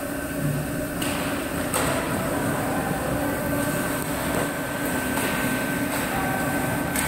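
Ice hockey play heard from rinkside: a steady arena hum under the scrape of skates on the ice, with a few sharp knocks about one and two seconds in and again near the end.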